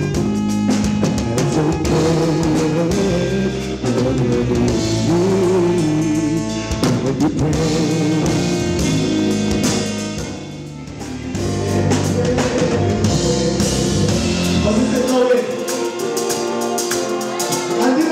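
A live band plays with a male lead singer: sung vocal over drum kit, electric bass and keyboard. The music eases off briefly about ten seconds in, then comes back.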